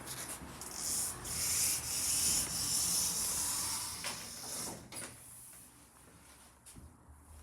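A rustling, rubbing noise that swells about a second in, runs unevenly for a few seconds, then fades.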